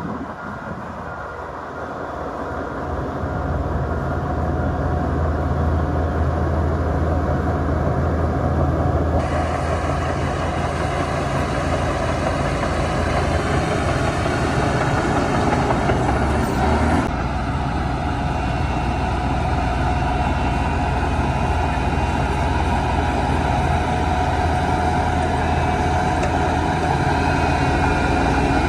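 Heavy diesel earthmoving machinery running under load. The engine drone grows louder over the first few seconds, then holds steady, with more clatter and hiss joining from about nine seconds in.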